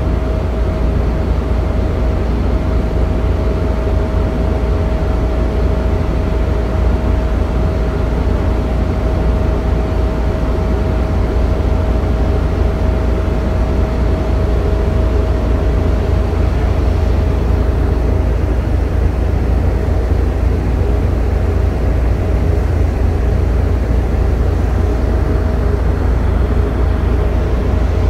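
Heavy machinery running steadily: a loud low rumble with a constant, even whine above it that holds unchanged.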